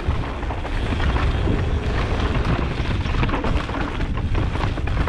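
Mountain bike descending a dusty dirt trail at speed: tyres rumbling over the dirt and the bike rattling and knocking over bumps, with wind buffeting the microphone.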